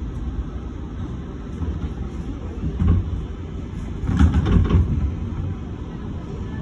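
Subway train heard from inside the car as it rolls slowly along an elevated platform: a steady low rumble, broken by a single clunk about three seconds in and a cluster of knocks between about four and five seconds.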